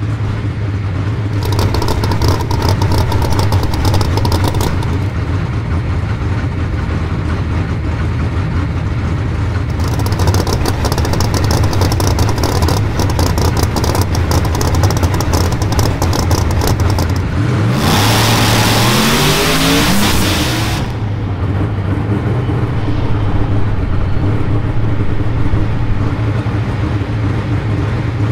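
Drag race car engine running rough and loud with bursts of crackle. About two-thirds of the way in it goes to full throttle for about three seconds, its pitch climbing steeply, then drops back to a steady run.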